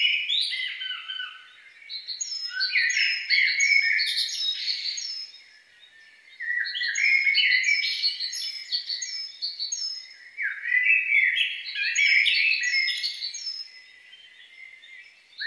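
Songbird song: phrases of quick, high chirping notes a few seconds long, with short breaks about one and a half, five and a half, and fourteen seconds in.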